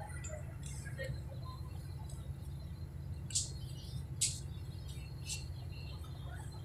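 Steady low rumble of a city bus's engine heard inside the passenger cabin, with three short high chirps near the middle.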